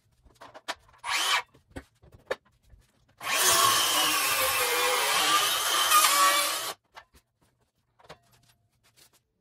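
Cordless power saw cutting into wood framing. It runs for about three and a half seconds with a wavering pitch, then stops abruptly, after a brief burst about a second in.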